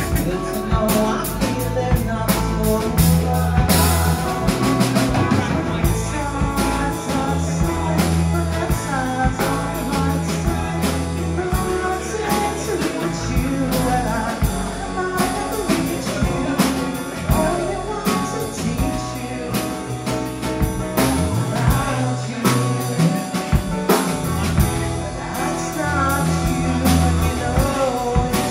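Live rock band playing: amplified electric guitars and a drum kit with steady beats, and a man singing into the microphone.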